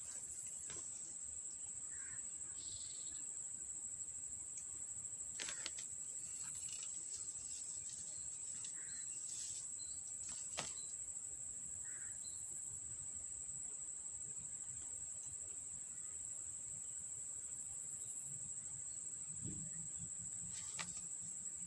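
Steady high-pitched drone of insects, crickets or cicadas. A few faint clicks are scattered through it.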